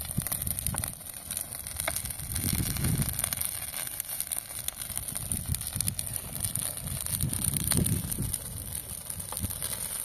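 Dry grass and weeds burning in an open fire: crackling with a low, gusty rush of flame that swells twice, about two and a half seconds in and again near eight seconds.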